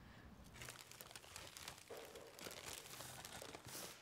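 Faint crinkling and rustling with many small scattered clicks, like handling noise.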